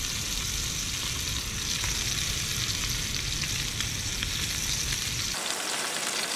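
Wagyu ribeye steak frying in olive oil in a cast iron skillet on a butane camp stove: a steady sizzle with faint crackles and spits. A low background rumble cuts out about five seconds in.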